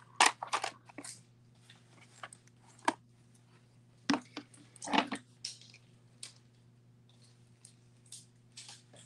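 Strands of glass beads and a small plastic bag being handled: scattered crinkles, rustles and light clicks, with a faint steady electrical hum underneath.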